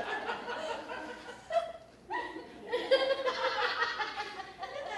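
An audience laughing, in two swells with a short lull about two seconds in.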